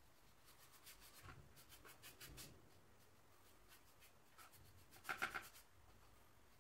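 Paintbrush strokes brushing acrylic paint, faint and scratchy, played at one and a half times speed. A run of quick strokes comes in the first half, then a louder tight bunch of strokes about five seconds in.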